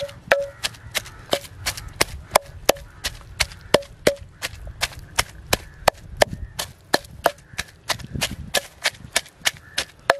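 Wooden pestle pounding sliced onions, tomatoes and green chillies in a clay mortar: sharp, even knocks about three a second.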